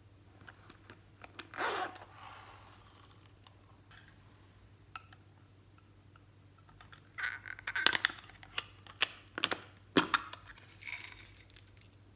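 Small silicone and plastic things being handled over a glass tray: a short rasp about two seconds in, then a cluster of sharp clicks and taps from about seven to eleven seconds in as small pieces are tipped onto the slime.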